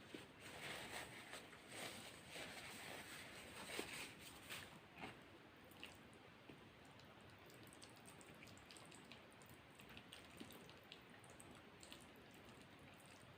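Close-up wet chewing and squishy mouth sounds of someone eating a food platter. They are louder over the first five seconds or so, then fade to faint, scattered mouth clicks.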